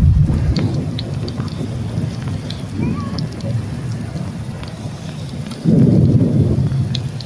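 A muddy flash-flood torrent rushing over a rocky ledge, a deep continuous rumble of churning water that swells louder for a second or so near the end.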